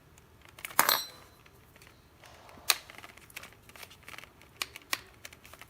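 Small 3D-printed plastic parts clicking and knocking as a topper piece is handled and pushed into a friction-fit knob base. There is a loud click with a short ring about a second in, another sharp click near three seconds, then a few light ticks.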